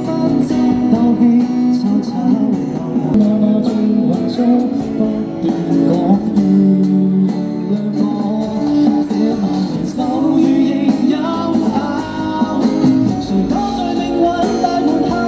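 Live busking band playing a Cantopop song, here an instrumental passage led by guitar over a steady backing.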